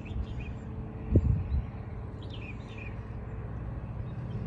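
Outdoor ambience: a few short bird chirps about two seconds in, over a low steady rumble, with a brief thump just after a second in.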